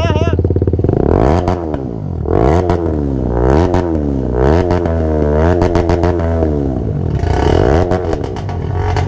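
Motorcycle with an aftermarket exhaust revved in repeated blips, about once a second, the pitch climbing and dropping with each one, then settling to a steady idle near the end.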